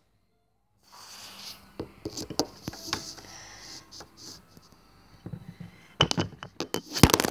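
Handling noise from small plastic toys and the camera on a tabletop: soft rustling with scattered taps and clicks starting about a second in, and a quick run of louder clicks near the end.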